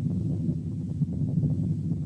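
Cervical venous hum heard through a stethoscope over the neck: a steady, low humming continuous murmur. It is the benign continuous murmur of blood flowing in the neck veins.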